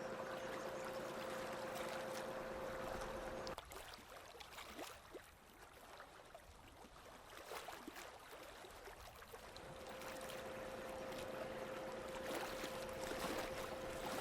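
Water lapping and trickling against a sailboat's hull, with small scattered drips and clicks. A steady hum sounds over it, cuts off suddenly about three and a half seconds in, and returns near the end.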